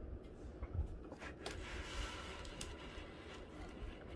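Faint handling noises: a few light clicks and a brief soft rustle over room tone.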